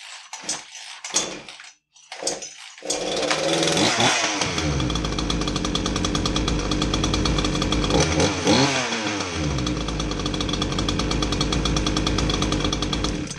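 Craftsman S165 two-stroke chainsaw being pull-started. A few short bursts come as it fires, then it catches about three seconds in and runs, revved up and back down twice before it is shut off. This is a start-up test to confirm the saw starts and runs after its check-over.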